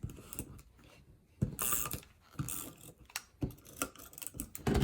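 Tape and cardstock being handled while a layered paper invitation is assembled: irregular small clicks and ticks with a brief rustle of paper, and a louder tap near the end.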